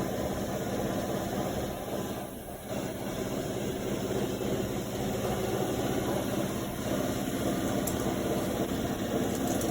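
MIG welder stitching a steel patch panel onto a car fender, a steady crackling weld with a short break about two and a half seconds in.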